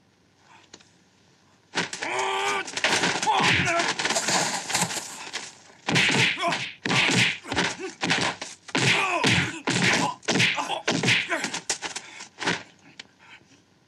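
Martial-arts film fight sound effects: after a quiet second or so, a man shouts out loud, then a rapid run of punch and kick impacts with whooshes, mixed with the fighters' yells and grunts.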